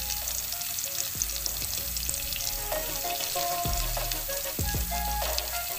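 Hot oil sizzling in a kadai as food fries, a steady hiss with fine, continuous crackling.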